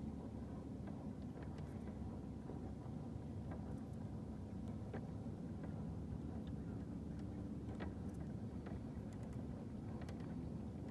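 Boat motor running steadily: a low hum and rumble, with a few faint clicks.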